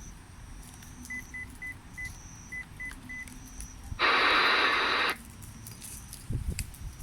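Radio receiver beeping seven times in quick succession at one pitch, four then three. About four seconds in comes a second-long burst of radio static hiss from the receiver's speaker.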